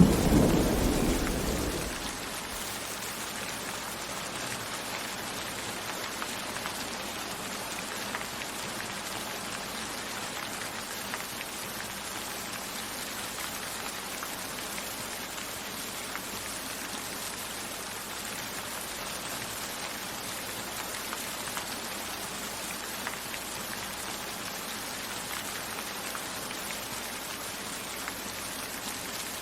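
Steady rain falling, with scattered individual drops ticking. A low thunder rumble is fading out over the first two seconds.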